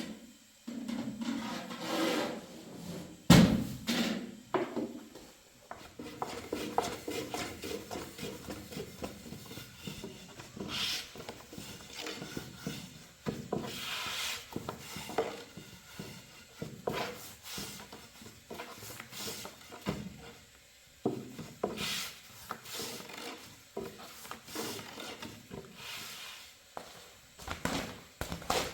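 Irregular knocking and scraping as objects are handled, with one loud knock about three seconds in.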